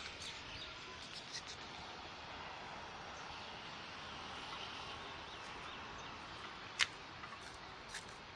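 Quiet outdoor ambience with faint, scattered bird chirps. A sharp click stands out about seven seconds in, with a few smaller clicks near the end.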